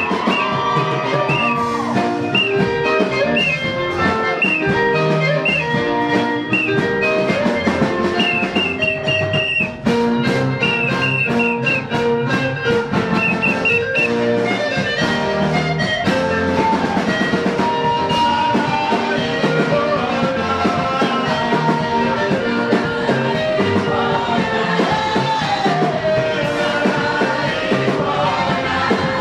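Church choir music with instrumental backing: a band plays while a lead singer and choir sing, with a short repeated high instrumental figure through the first half and sung phrases that slide in pitch in the second half.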